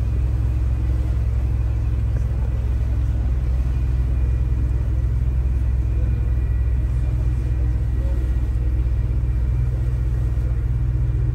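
Tour boat's engine running with a steady low drone.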